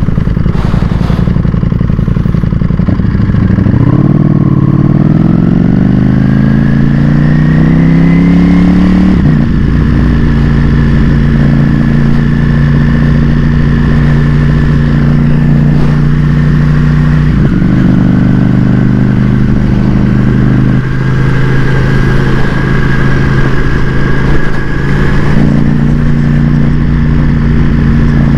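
Ducati Panigale V4S's 1103 cc V4 engine under way, the revs climbing for about five seconds as it pulls away, then dropping on a shift and holding a steady cruise, with brief changes as the rider works the throttle and gears.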